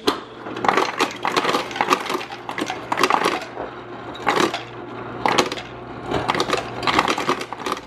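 Refrigerator door ice dispenser dropping ice cubes into a glass mason jar, with many irregular clinks and clatters of ice on glass over a low steady hum.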